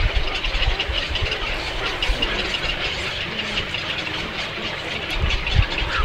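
A flock of birds chattering together in a dense, continuous din, with wind rumbling on the microphone.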